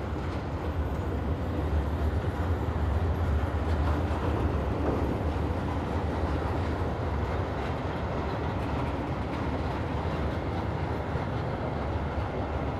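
A Merseyrail Class 777 electric train, unpowered and hauled, rolling past close by: a steady low rumble of wheels on the rails.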